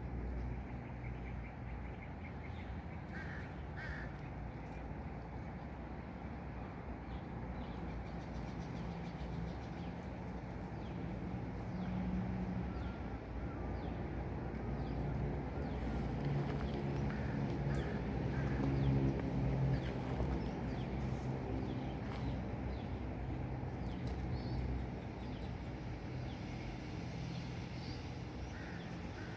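Outdoor ambience: a steady low rumble, with a few short animal or bird calls now and then.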